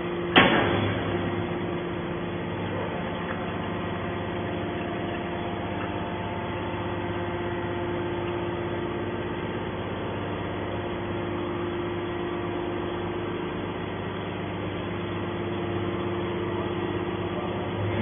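Hydraulic scrap metal baler: a sharp metallic clank about half a second in, then the steady hum of its hydraulic power unit running while the ram pushes a compressed bale of scrap out of the press chamber.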